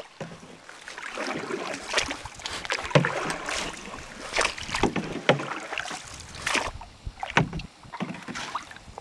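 Canoe paddles dipping and pulling through calm river water, with irregular splashes and drips at each stroke.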